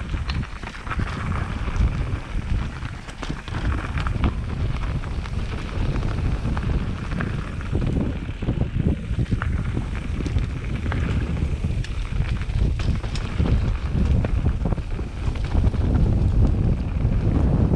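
Mountain bike riding down a dirt forest trail: wind rumbling on the camera's microphone, with the bike clattering over bumps, a little louder near the end.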